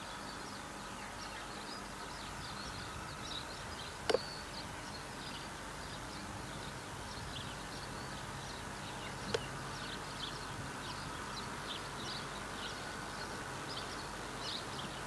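Small birds chirping over and over in short high calls against a steady outdoor background hiss, with two sharp clicks, one about four seconds in and one about nine seconds in.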